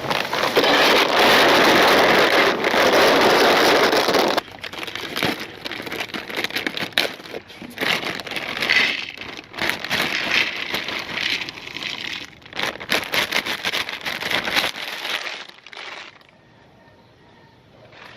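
Meat grinder crushing dry pasta: a dense, loud grinding crunch for about four seconds, then irregular crackling and snapping that dies away near the end.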